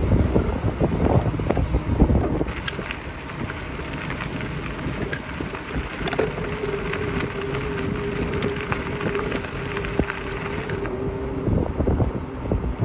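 Wind buffeting the microphone of a moving bicycle, heaviest in the first two seconds, over a steady rolling rush with a few sharp clicks. A steady hum runs for about four seconds in the middle.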